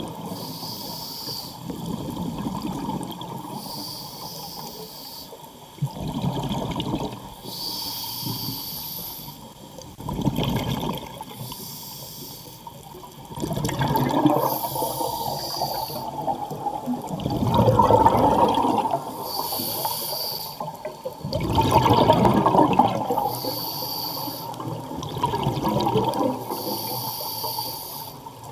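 Scuba diver breathing through a regulator underwater. A short hiss of inhalation through the demand valve alternates with a louder rush of exhaled bubbles, repeating about every four seconds.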